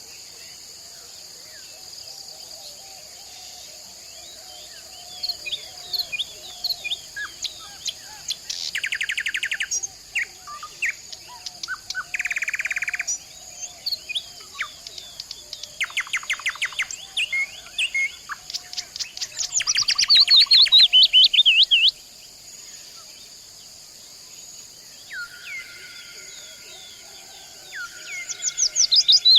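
Several forest birds calling and singing: short chirps, fast trills and rapid call series. The loudest is a run of quick descending notes about two-thirds of the way in, and long steady whistles follow near the end. A steady high-pitched drone runs underneath.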